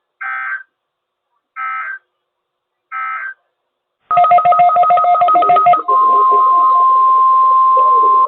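NOAA Weather Radio alert signalling. It begins with three short SAME digital data bursts about a second and a half apart, the end-of-message signal closing a weekly test. After a pause comes a louder, rapidly pulsing two-pitch burst for about two seconds, which gives way about six seconds in to the steady 1050 Hz weather radio warning alarm tone.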